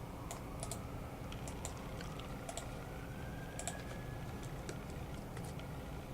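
Computer keys clicking sparsely, about a dozen sharp clicks at uneven intervals over a steady low background hiss.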